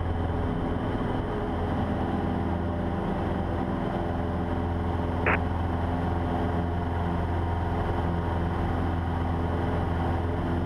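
Cessna 150's Continental O-200 four-cylinder engine at full takeoff power, a steady drone heard inside the cabin through the takeoff roll and climb-out. One brief sharp click about five seconds in.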